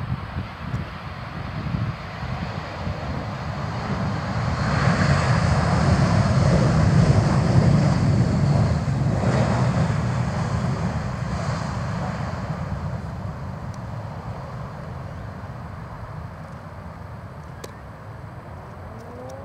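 Airbus A320-family airliner's jet engines just after touchdown: a rushing roar that swells about four seconds in as reverse thrust is applied, is loudest for several seconds, then slowly dies away as the airliner rolls out.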